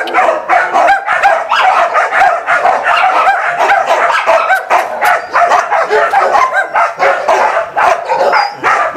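Many dogs barking at once, a continuous overlapping chorus of barks with no let-up.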